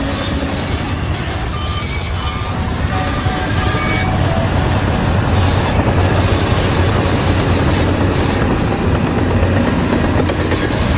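Bulldozer diesel engine running steadily under load, with high squeals from its steel tracks.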